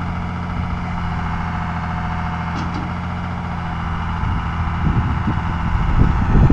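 Engine of the machine pulling down a wooden building running steadily, with a few knocks in the last couple of seconds.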